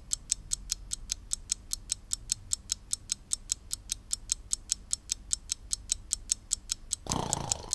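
Clock ticking fast and evenly, about five sharp ticks a second. A brief rush of noise swells up under the ticks near the end.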